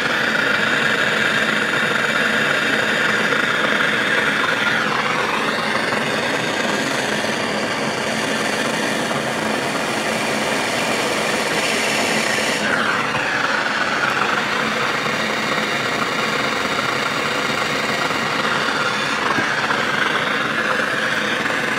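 Gas blowtorch flame burning steadily while it heats a copper pipe tee fitting to sweat a solder joint. Its tone shifts a couple of times.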